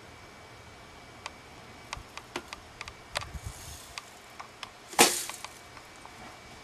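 A bear working at a bird feeder on the ground: scattered clicks and knocks of claws and teeth on the feeder, then one louder crack about five seconds in.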